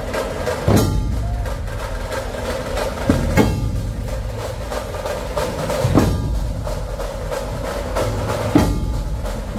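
Dhol-tasha troupe playing: many large barrel-shaped dhol drums beaten together over a fast, continuous tasha rattle. A heavy unison accent lands about every two and a half seconds.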